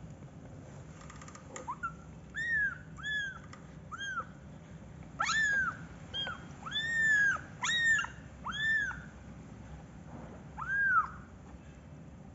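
Young kitten mewing repeatedly: about ten short, high calls, each rising then falling in pitch, with a pause of over a second before a last call near the end.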